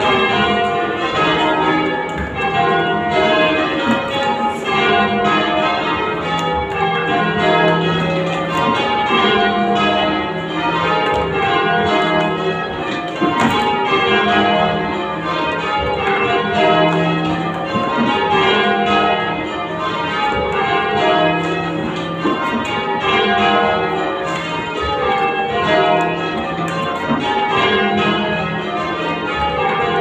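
Change ringing on a ring of church bells, heard from the ringing chamber beneath them. The bells strike one after another in an even rhythm, in rows that repeat and step down in pitch.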